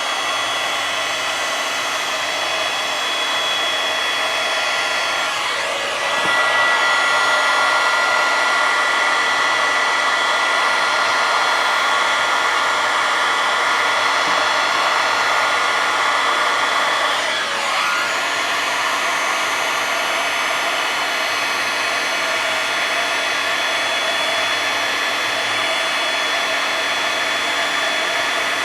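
Electric heat gun running steadily, a blowing noise with a fan-motor whine, heating a solder-seal wire connector to melt its solder ring and shrink its sleeve. It gets a little louder about six seconds in and dips briefly near eighteen seconds.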